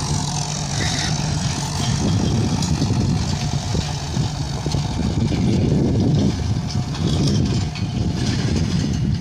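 Farm tractor's diesel engine running steadily as it tows a trailed boom sprayer across the field.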